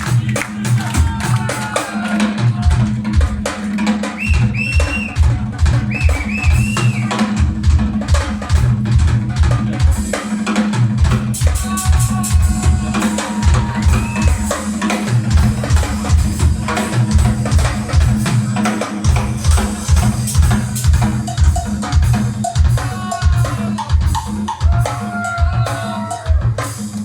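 Live band playing a fast, drum-driven song: rapid kick-drum strokes and snare under a steady bass line, loud throughout.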